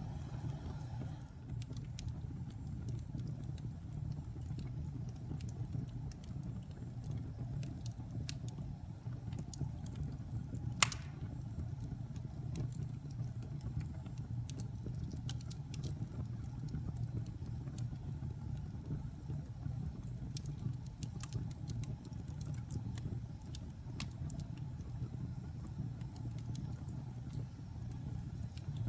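Wood fire crackling: a steady low rumble of flames with scattered small snaps and one sharp, loud pop about eleven seconds in.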